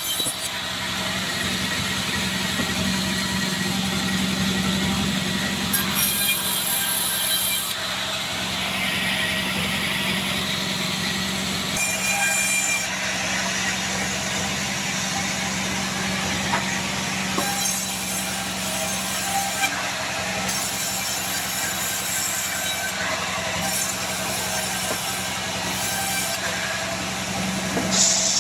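Sawmill log band saw running steadily with a constant motor hum, its blade cutting through a Bayur log, with a brighter cutting noise for a few seconds about a third of the way in.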